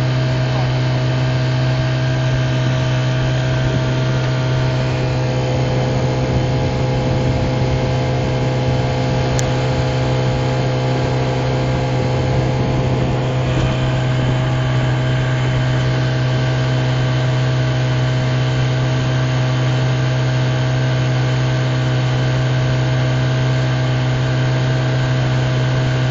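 Yamaha 25 hp two-cylinder two-stroke outboard running at a steady speed with the boat under way and planing, its note holding constant with no revving.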